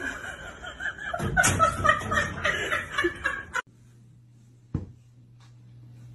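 People laughing, chuckling and snickering, which cuts off abruptly about three and a half seconds in. After that comes a faint steady low hum, with a single sharp knock about a second later.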